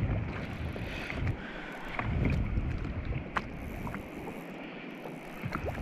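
Wind buffeting the microphone in gusts over choppy sea, with water lapping against the kayak's hull and a few sharp clicks.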